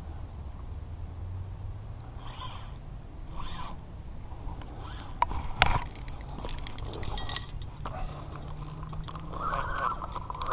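Fishing reel in a rod holder giving three short zips as line is pulled off against the drag: a fish taking the bait. A sharp knock about halfway through, then rapid clicking as the rod is handled.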